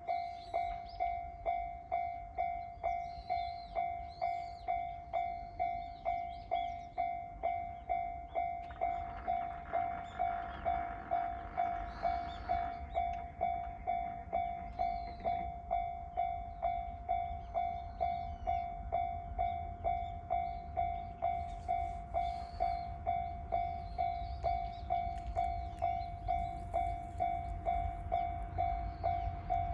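Japanese railway level crossing warning bell ringing in the steady 'kan-kan' rhythm, about two strokes a second, as a train is due. A low rumble grows underneath near the end.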